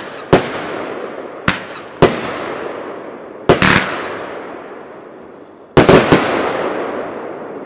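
A fireworks cake (SD-04 Glittering dahlia) firing shot after shot. Each sharp report is followed by a long, fading hiss of glittering stars. Near the end, three reports come in quick succession.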